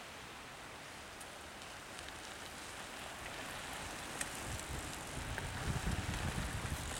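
Mountain bike tyres rolling and crackling over a dirt forest trail as a line of riders passes close, growing louder over the last few seconds, with an irregular low rumble from about halfway.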